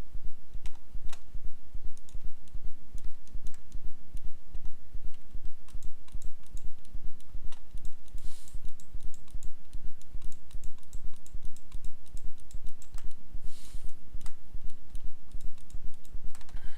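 Scattered clicks and taps of a computer keyboard and mouse being worked, over a steady low electrical hum. Two short soft hisses come about 8 and 13.5 seconds in.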